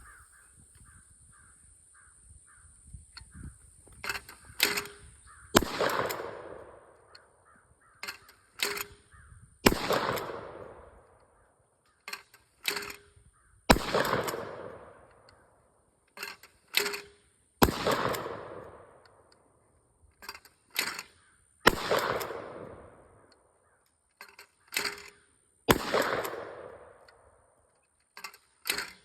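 A short-barrelled Winchester Defender 12-gauge shotgun fires six times, about every four seconds, each shot echoing away over a second or so. Two quick clacks come just before each shot. Faint, regular bird calls, tagged as crows, are heard at first.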